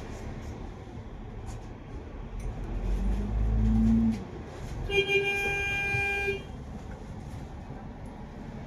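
Bus engine and road noise heard from inside a Kowloon Motor Bus. The engine swells about three seconds in, then a vehicle horn gives one long honk of just over a second, about five seconds in.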